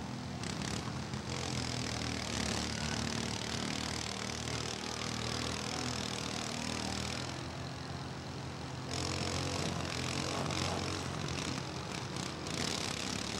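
Several riding lawn mowers' small engines running together as the mowers drive around, a steady mechanical drone.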